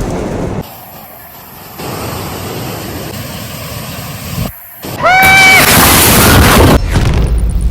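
Storm wind and rain noise cut together from several short clips, stopping and starting abruptly, loudest and hissiest from about five seconds in. Over the loudest part comes a brief high-pitched sound that rises and then holds.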